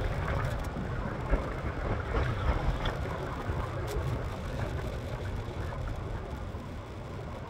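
Steady rush of riding noise from a moving electric scooter: wind buffeting the microphone and tyre rumble on the road, with a sharp knock about a second in and a faint click a few seconds later.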